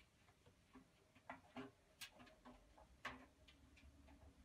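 Near silence broken by faint, irregular clicks and taps: a kitten's paws and claws on the drum of a front-loading laundry machine.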